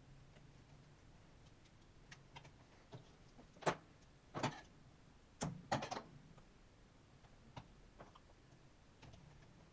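A series of sharp plastic and metal clicks and knocks from laptop parts and tools being handled during repair, bunched together near the middle. The loudest are four or five close together.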